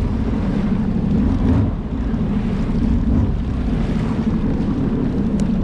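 2021 Sea-Doo Spark Trixx personal watercraft running under way: a steady rush of engine and jet pump mixed with water and wind noise, holding an even level throughout.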